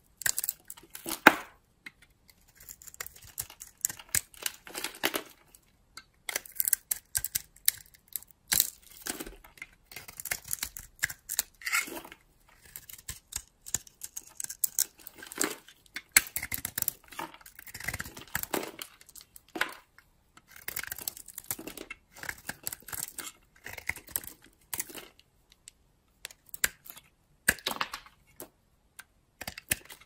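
Utility-knife blade shaving and scraping a bar of dry soap: a run of short, crisp crunching strokes at an irregular pace, with brief pauses between bursts.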